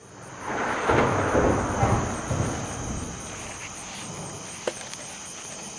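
Crickets and other night insects trilling steadily. Over the first few seconds there is loud, irregular rustling and scuffling of grass and camera handling as a person moves quickly, then a single sharp click near the end.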